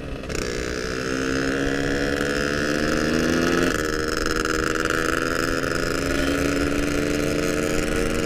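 Yamaha RX-King's two-stroke single-cylinder engine running while riding, its pitch climbing slowly for a few seconds, then dropping suddenly about three and a half seconds in and holding steady.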